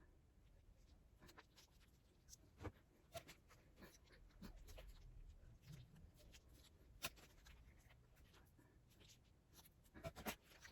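Near silence with scattered faint clicks and light rustling from instant-noodle sauce packets being handled and squeezed out over the noodles, a few sharper ticks near the middle and the end.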